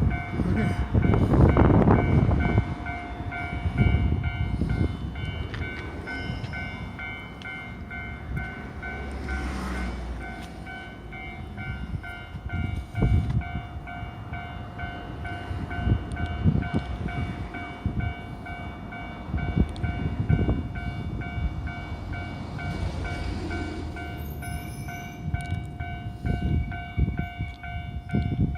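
Japanese railway level-crossing warning bell sounding its steady, evenly repeating electronic clang, the signal that a train is coming or passing. Under it a train rumbles over the crossing with wheel clacks, loudest in the first few seconds.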